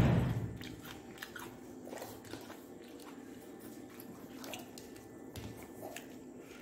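Eating sounds from someone eating rice and curry with his fingers: chewing, with faint small clicks and smacks. A louder sound at the very start fades within about half a second.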